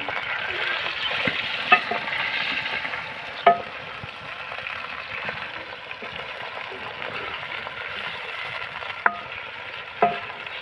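Raw chicken and fried onions sizzling in hot oil in a metal pot, loudest in the first few seconds, as they are stirred with a wooden spoon. The spoon knocks sharply against the pot about four times.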